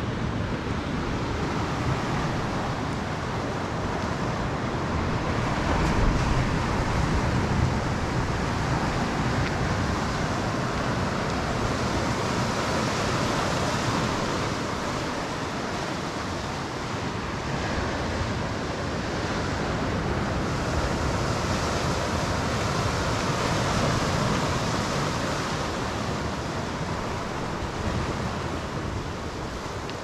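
Sea surf washing onto a rocky shore, a steady rush that swells and eases, with wind buffeting the microphone.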